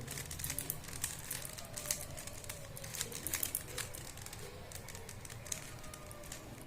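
Rubik's cube being handled and turned, its plastic layers giving light, irregular clicks.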